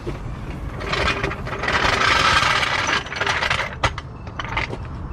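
Metal parts scraping for about two seconds, starting about a second in, as the CR-V's steering knuckle and hub assembly is shifted during axle removal, with light knocks before and after.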